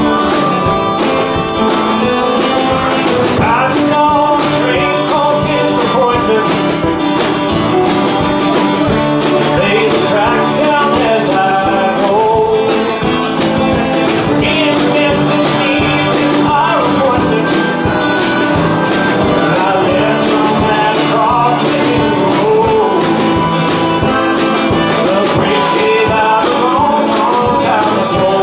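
A man singing with a strummed acoustic guitar and a small live band, with harmonica playing along.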